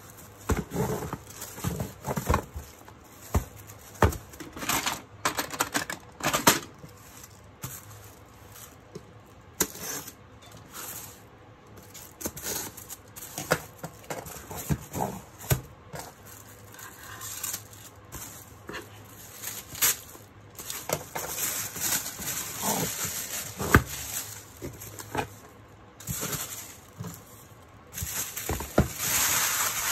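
Hands unboxing a keyboard: cardboard box and plastic packaging being handled, with irregular knocks, clicks and rustling, and longer stretches of sliding or crinkling noise about two-thirds of the way in and near the end.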